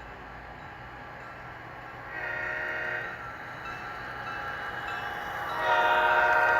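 Diesel locomotive air horn played by a model locomotive's Soundtraxx Tsunami 2 sound decoder. There is a short blast about two seconds in, then a longer, louder blast starting near the end.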